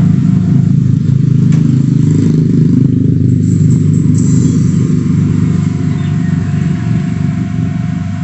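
Music played loudly through a sound system fed by a Behringer Super-X Pro CX3400 active crossover, as a sound test. It is steady and heavy in the bass, with little treble.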